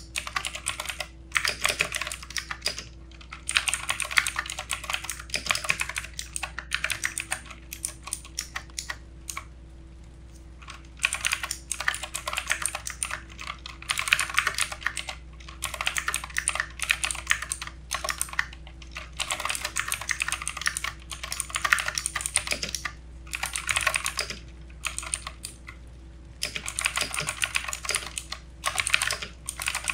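Fast typing on a backlit mechanical computer keyboard: rapid key clicks in runs of a few seconds with short pauses between.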